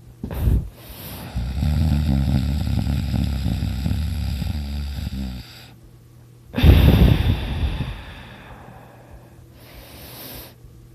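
A person snoring loudly: one long snore of about four seconds, then after a short pause a briefer, louder blast of breath, followed by quieter breathing.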